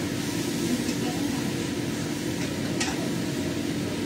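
Steady hum and hiss of a kitchen range hood fan running over a gas stove while a wok of vegetables is stir-fried. A brief utensil clink comes near three seconds in.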